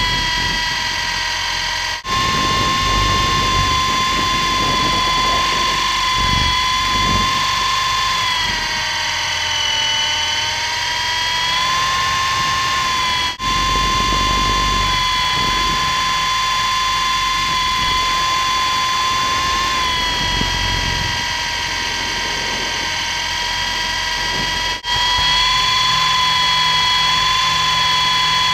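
Onboard sound of an MJX F45 RC helicopter's electric motors and rotor: a steady high whine with overtones, its pitch sagging slightly a couple of times and coming back up, over gusty wind rumble on the camera's microphone. The sound drops out for an instant three times.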